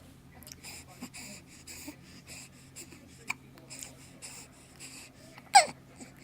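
A person hiccupping: quick, soft breaths about twice a second, then one loud hiccup with a falling pitch about five and a half seconds in.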